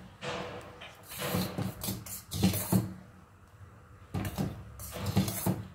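Steel spoon stirring heating milk in a steel pan, scraping against the pan in a series of strokes, with a short pause about three seconds in.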